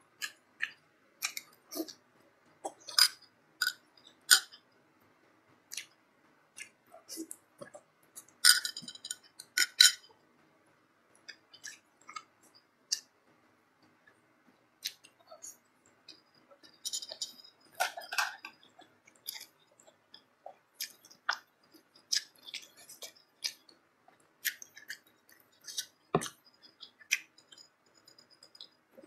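Close-miked mouth sounds of a person eating spicy bakso meatball soup with chunks of beef tendon: wet chewing and lip smacks come in irregular clicks, with louder clusters a few times.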